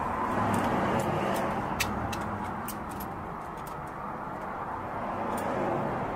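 About eight light, sharp metallic clicks, most in the first three seconds, as vise grips and a stainless steel welding rod are handled. Underneath them runs a steady outdoor background rumble, like distant traffic.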